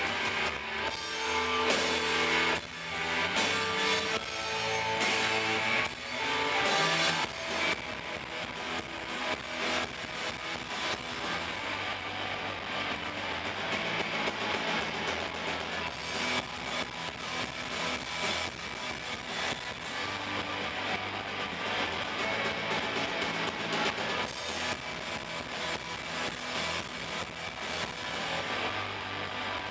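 Live rock band playing an instrumental stretch on electric guitars, bass guitar and drum kit. It is louder with cymbal crashes for the first seven seconds or so, then settles into a steady groove.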